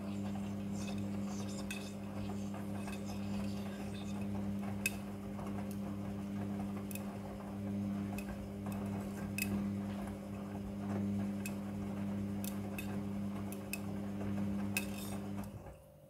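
Midea front-loading washing machine tumbling a wash load: a steady motor hum with irregular clinks and ticks as zippers and hard items in the laundry knock against the drum and door glass. Near the end the drum stops and the hum cuts off.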